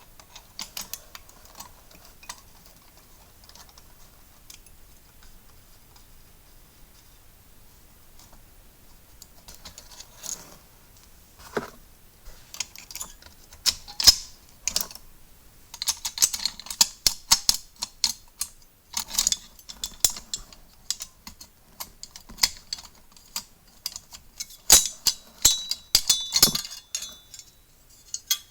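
Manual typewriter being taken apart: irregular clicks, taps and metallic clinks of its parts and screws being handled, sparse at first and coming thick and fast in the second half.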